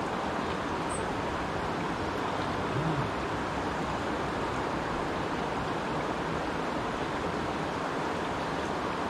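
Steady rush of a shallow creek's flowing water.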